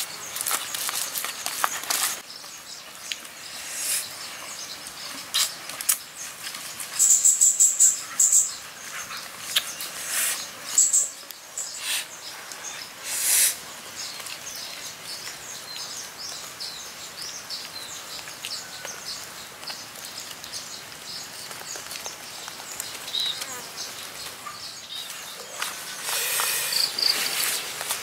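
Insects and birds chirping, with the loudest high chirps about seven to eight seconds in and again near eleven seconds. Scattered rustling and handling noises come from hands rubbing chili paste into a whole fish and moving banana leaves and herbs.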